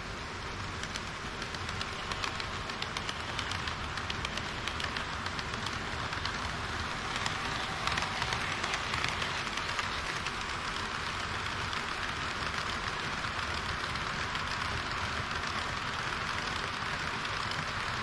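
HO-scale model train running on the layout track: a steady rushing clatter of many small, rapid wheel-on-rail clicks, growing a little louder about two seconds in.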